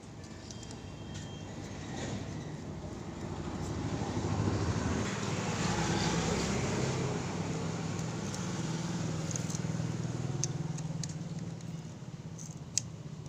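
A motor vehicle going past, its engine hum swelling over several seconds and then fading. Near the end come a few small sharp metallic clicks from an Allen key on the bolts of a motorcycle's starter one-way clutch.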